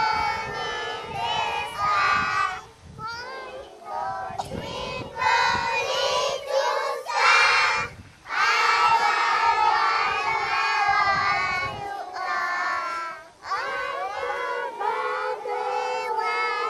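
A large group of young children singing together in unison, with some shouting, pausing briefly between phrases and holding one long phrase in the middle.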